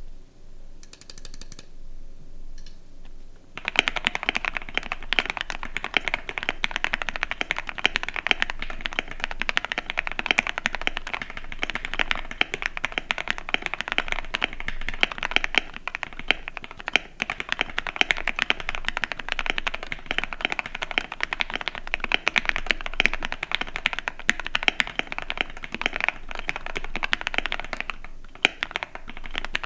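Fast, continuous typing on a KBD67 Lite R3 mechanical keyboard fitted with Gateron Black Ink V2 linear switches, a dense stream of keystroke clacks. The typing starts about three and a half seconds in.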